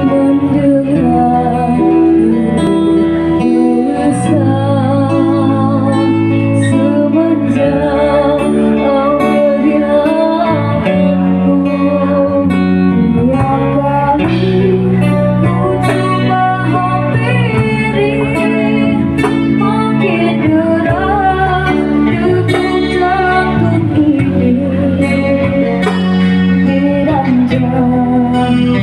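Live cover song performance: two young female singers take turns singing through microphones, accompanied by acoustic guitar and electric keyboard.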